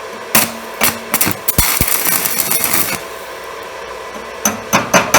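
Stick welding with a new UONI 13/55 basic-coated electrode: a few short crackling bursts as the arc is struck, a steady arc sizzle for about a second and a half, then more brief strikes near the end. The arc lights well on the fresh electrode.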